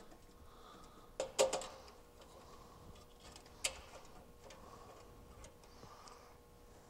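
A few sharp clicks and light knocks from wires being handled and pushed into a metal electrical junction box, with faint rustling between. The two loudest clicks come close together about a second in, and another about halfway through.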